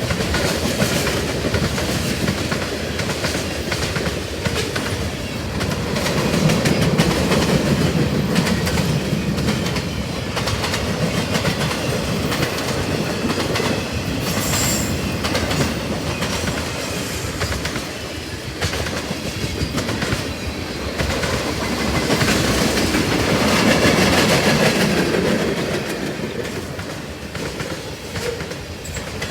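CSX freight train M426's cars rolling past at track speed, the wheels clacking steadily over the rail joints, swelling louder twice.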